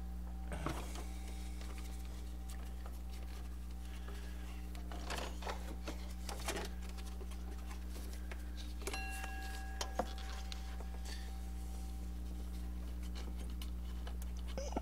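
A serpentine belt being worked off an alternator pulley by hand: faint rustling and scraping of rubber on the pulley, with a few light clicks, the clearest about two-thirds of the way in, over a steady low hum.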